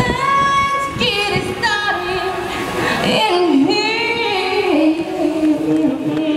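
A woman's voice singing a slow melody in long held notes. It starts high, steps down in pitch, wavers through a lower phrase about three seconds in, and settles on a long low note near the end.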